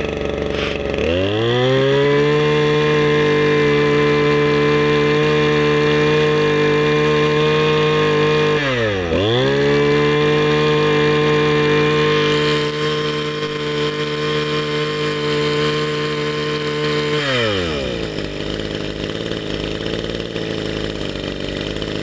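Echo 260 (Kioritz) 26 cc, 34 mm-bore two-stroke brush cutter engine running off load. It is revved up from idle about a second in and held at high speed, dips briefly when the throttle is let off near the middle, is revved high again, then drops back to idle near the end.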